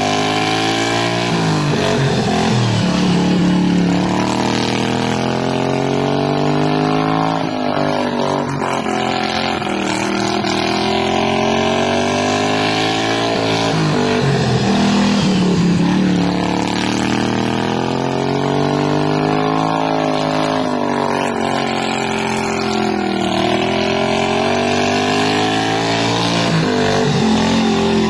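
Racing lawnmower engines running hard around a track, the engine pitch climbing for several seconds and dropping back again and again as they accelerate and slow for the turns.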